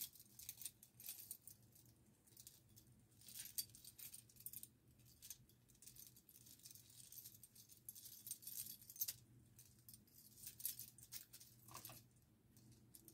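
Faint, scattered clinking and rattling of a handmade bracelet's small pieces knocking together as it is handled and fastened on a wrist.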